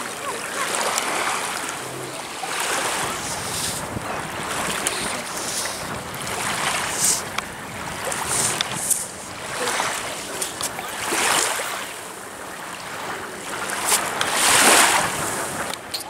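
Small sea waves breaking and washing up on a sandy beach, surging and fading every couple of seconds, with wind on the microphone.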